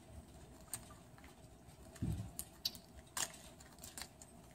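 Quiet room with scattered faint clicks and taps from things handled at a wooden pulpit, and a soft low thump about two seconds in.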